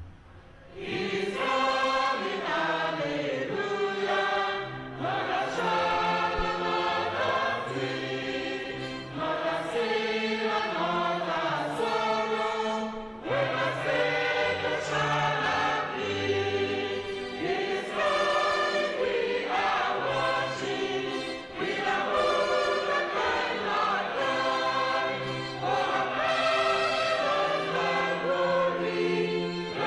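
Mixed church choir singing in several-part harmony, holding long notes, beginning about a second in after a brief pause.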